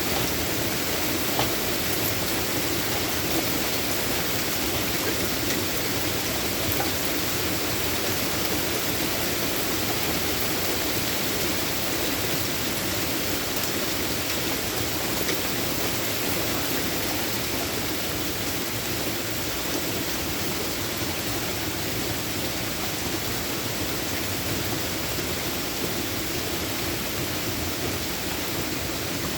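Steady heavy rain, an even hiss with a few faint drop ticks.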